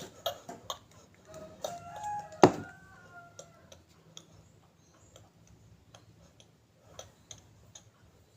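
Scattered light clicks and taps from slime-making containers being handled, with one sharp knock about two and a half seconds in. A brief pitched call with several tones sounds just before and after the knock.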